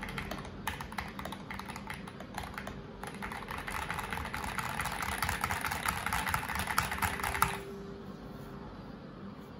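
Keystrokes on a mechanical keyboard fitted with Akko OSA-profile keycaps, clacking unevenly at first, then fast continuous typing from about a third of the way in that stops abruptly near three-quarters through.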